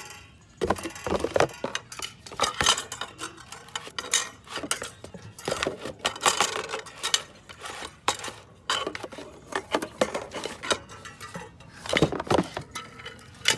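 Metal brake parts clinking and clattering as they are handled and set down, in irregular knocks and rattles.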